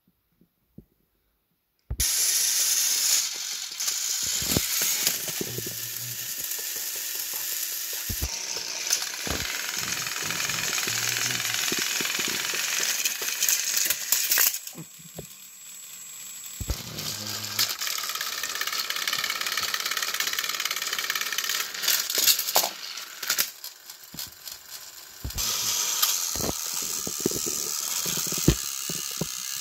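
Battery-powered Thomas & Friends TrackMaster toy engines running their small gear motors on plastic track: a steady, high buzzing whine with rattles and clicks as they strain against each other in a pulling contest. The sound starts about two seconds in, and its level jumps several times.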